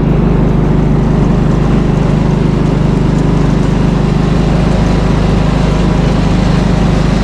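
Snowblower's small gas engine running steadily, with an even, unchanging hum.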